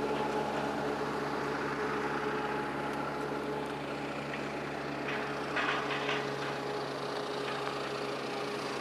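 An engine idling steadily with an even, unchanging pitch, with a brief noise about five seconds in.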